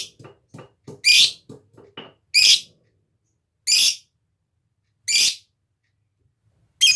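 Lovebird calling: five short, shrill calls about a second and a half apart, with a run of soft, quick ticks in between during the first two seconds.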